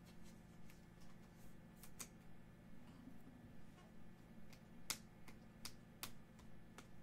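Faint clicks of glossy baseball cards being slid one at a time off a stack from hand to hand, a scattering of light ticks with the sharpest about two and five seconds in, over a faint low hum.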